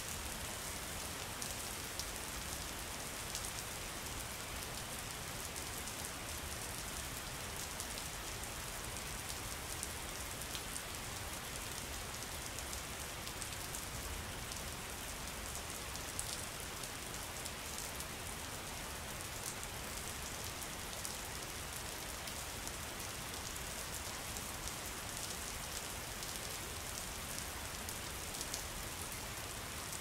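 Steady rain falling, an even hiss with many separate drop hits ticking through it.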